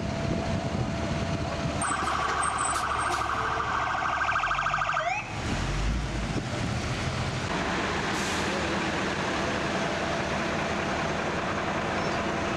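Emergency vehicle siren sounding a rapid warbling tone for about three seconds, a couple of seconds in, then sweeping upward and breaking off. Steady vehicle engine rumble and street noise sound throughout.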